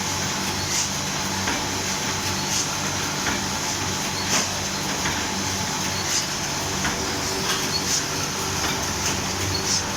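Automatic wire-stitching (book-stapling) machine running with a steady mechanical hum, a sharp clack recurring about every two seconds, with lighter ticks between.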